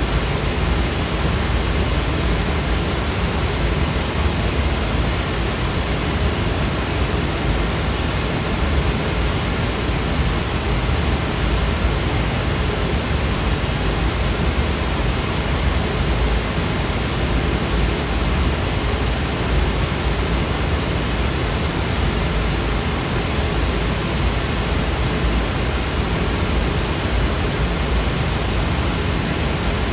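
Steady white noise: an even, unchanging hiss with nothing else in it.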